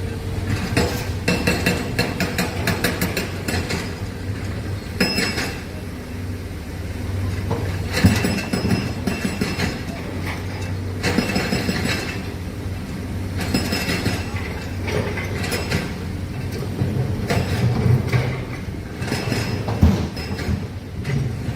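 Heavy excavator working, its diesel engine running with a steady low drone under repeated sharp metallic clanks and clinks from the tracks and bucket.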